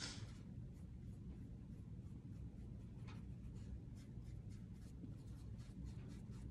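Faint scratchy strokes of a small paintbrush on the painted porch-sitter board, with a sharper stroke at the start and another about three seconds in, over a low steady room hum.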